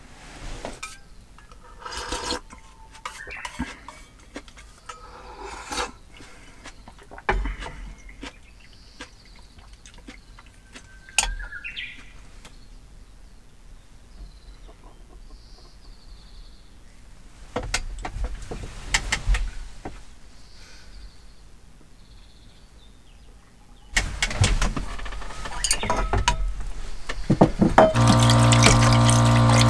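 Light clinks and knocks of ceramic bowls and chopsticks on a wooden table, then bowls being rinsed under a running tap. Near the end a small electric water pump hums steadily under the splashing water.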